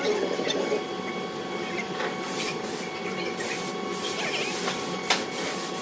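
Metal lathe running with a steady motor whine as it turns a part, broken by scattered short scrapes and hissy bursts from the cutting tool.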